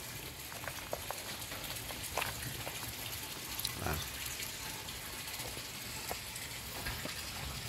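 Faint, scattered rustles and clicks of chopped leafy greens being handled and laid out in a plastic crate, over a steady background hiss.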